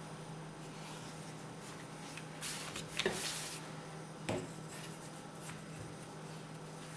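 Hands handling a thin sheet of rolled-out egg dough on a wooden board: a soft rubbing rustle about two and a half seconds in, with two light knocks, over a steady low hum.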